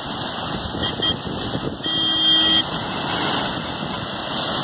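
Water jetting from a burst water supply pipeline: a steady, loud rushing spray. About two seconds in, a horn sounds once for under a second.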